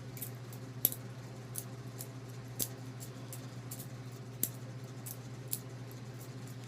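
Benchmade butterfly knife trainer being flipped: irregular metallic clicks and clacks as the handles swing around the blade and knock together. A few louder clacks come about a second in, near the middle and again later on, over a steady low hum.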